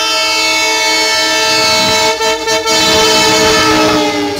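Indian Railways locomotive air horn sounding one long continuous blast, its pitch sinking slowly, then cutting off near the end.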